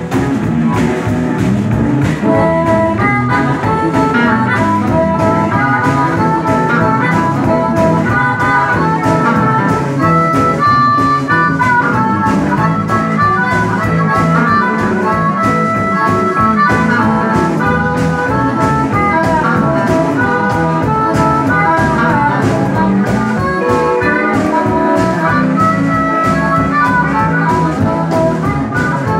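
A blues band playing live: a harmonica blown into a handheld microphone and electric guitar over a drum kit's steady beat.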